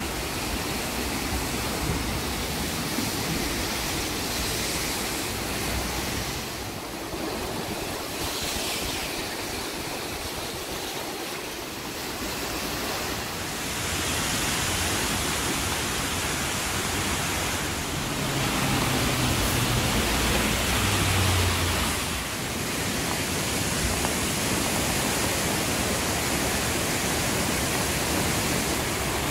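The flooded Volme river rushing: fast, swollen brown water making a steady, even noise. Its level shifts a few times across the span.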